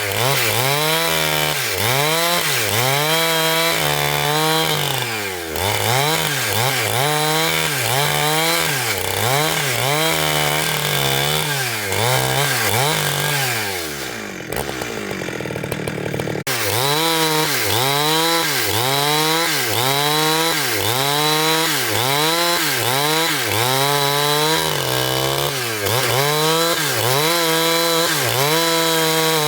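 Motor-driven saw cutting through wood, its pitch dipping and recovering in a steady rhythm of about one to one-and-a-half times a second as it loads up in the cut. About halfway through, the pitch slides down and the saw briefly eases off, then comes back up and carries on cutting.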